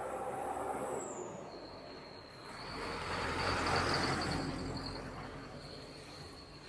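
A vehicle passing on the road: its noise swells to a peak about three to four seconds in, then fades away.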